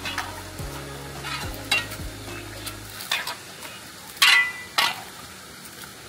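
Rocks clattering and crunching underfoot on a loose stone bank, with sharp knocks of a metal shovel against stone over a steady hiss. The loudest knock, with a brief metallic ring, comes about four seconds in.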